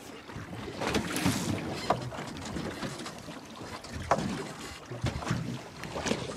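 Wind and water sloshing around a small boat at sea, with a few light knocks.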